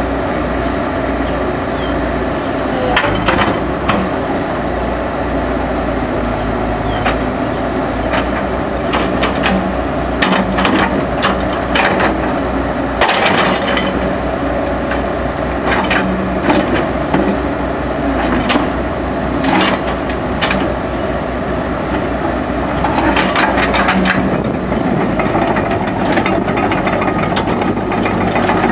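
Caterpillar 312B hydraulic excavator's diesel engine running steadily while the boom, stick and bucket are worked, with repeated sharp metallic clanks and knocks from the arm and bucket.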